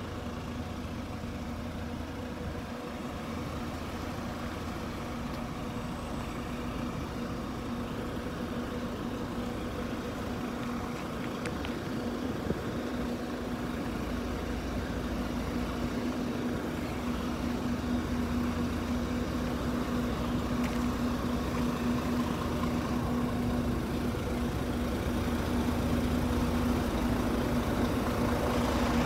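Diesel engines of heavy truck-based armoured buses idling, a steady hum that grows gradually louder toward the end.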